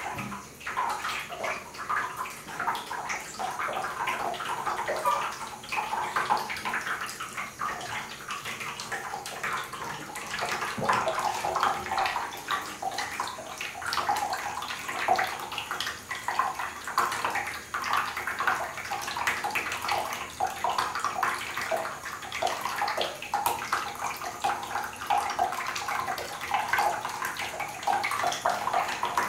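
A thin stream of water from a bathtub spout splashing steadily onto the floor of an almost empty tub.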